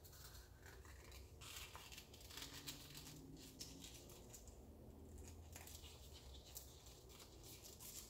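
Faint, scattered crinkling and crackling of plastic as a small squeeze bottle of thinned acrylic paint is squeezed out over a canvas, over a low room hum.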